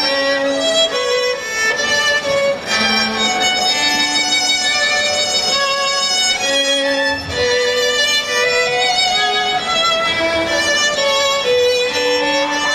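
A violin duo playing a classical piece, the two violins holding bowed notes in two lines that move from note to note.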